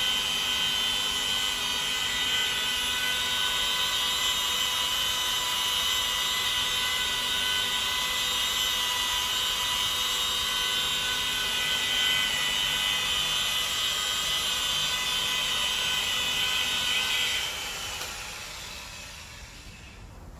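Mini rotary polisher with a small foam pad running steadily with a high whine as it buffs car paint, then winding down and stopping near the end.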